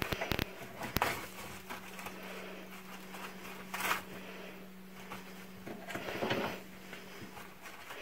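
African grey parrot scrabbling on a paper towel roll and its wooden holder: a few sharp clicks and knocks near the start, then short bursts of paper rustling, over a steady low hum.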